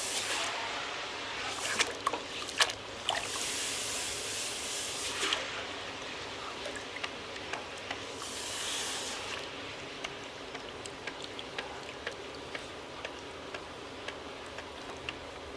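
A hot 4140 steel block being quenched in a bucket of water to harden it: the water bubbles and crackles against the steel, with surges of hissing and sizzling about 4 and 8 seconds in, and sharp pops and crackles, the loudest a few seconds in.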